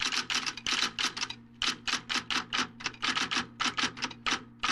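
Typewriter keys striking in a fast run, about six clacks a second with a couple of brief pauses, the effect that goes with text typed out letter by letter; a faint steady hum lies underneath.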